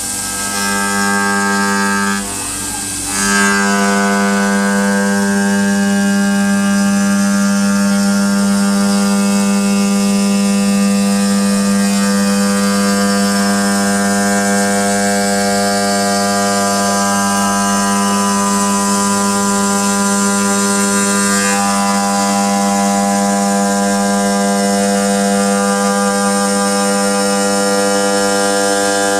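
CNC stone machine's spindle motor running at steady speed, a steady pitched whine that falters briefly about two seconds in.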